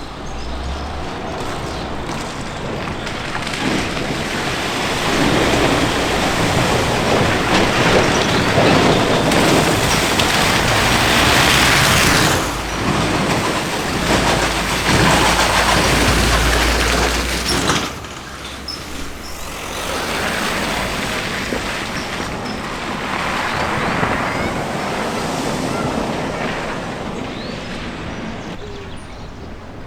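A car driving through a deep, flooded river ford, its engine and the rush of splashing water building to a loud peak in the middle and dropping off suddenly about two thirds of the way through. A second, quieter surge of water follows.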